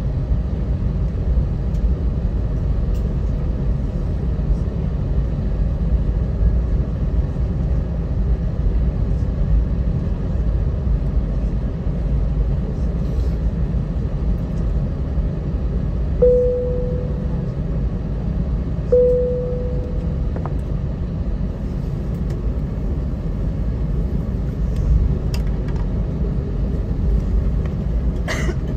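Jet airliner cabin during taxi: steady low rumble of the engines at idle and the rolling aircraft, heard from a window seat over the wing. About halfway through come two short fading chime tones a few seconds apart, and a brief click near the end.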